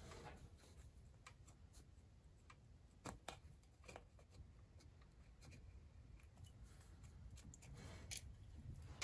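Near silence with faint rustling and a scattering of small clicks from hands at work, cleaning debris off the small-block Chevy's distributor mounting hole after the old gasket has been removed.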